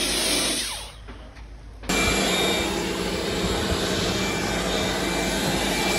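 Pressure washer spraying snow foam through a foam cannon: a steady hiss of spray over the pump's hum. It drops away about a second in and comes back abruptly about a second later.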